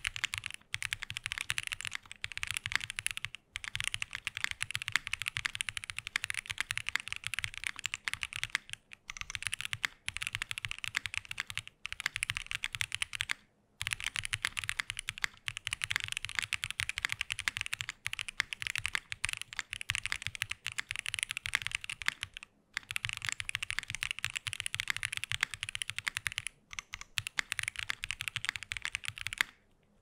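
Fast, continuous typing on a Haven65 mechanical keyboard with lubed Moyu x XCJZ Snow Grape linear switches, an aluminium plate, no foam and GMK keycaps, with a few brief pauses.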